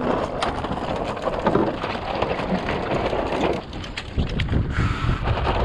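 Gusty wind rushing over the microphone, with choppy water slapping and splashing against a small wooden sailboat's hull in a dense crackling patter.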